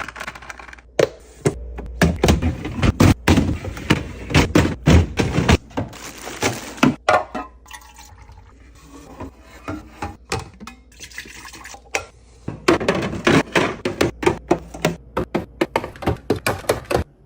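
Fridge restocking sounds: drink bottles, cans and plastic containers being set down, knocked and clacked together in quick succession, with stretches of liquid being poured.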